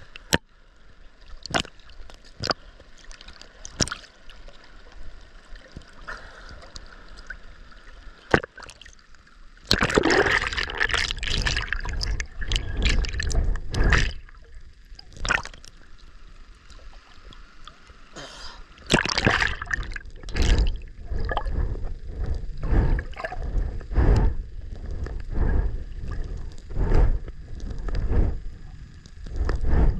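Sea water sloshing and splashing against a swimmer's waterproof camera as it rides the surface, with sharp drip-like ticks. From about ten seconds in, and again from about nineteen seconds, there are long loud stretches of churning water as the camera dips under.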